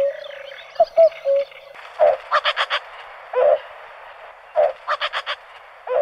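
Common cuckoo calling: low hooting 'cu-coo' notes repeated every second or so. Twice a burst of four quick harsh notes breaks in.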